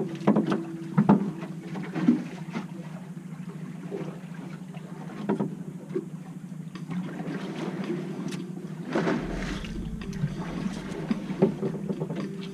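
Fishing boat's engine running with a steady low hum, with scattered sharp knocks and clicks.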